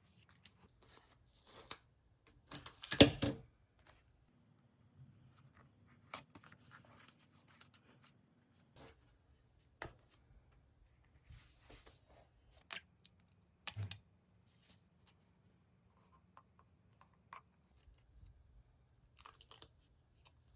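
Paper-crafting supplies being handled on a desk: one loud tearing sound about three seconds in, then scattered light taps, clicks and soft rustles of paper and stickers.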